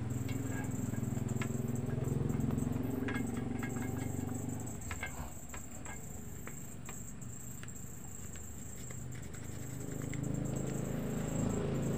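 Cotton wad rubbing over a CRT TV's rubber anode cap and high-voltage lead while cleaning it, with soft rubbing and scattered small clicks, most of them in the middle, over a steady low hum.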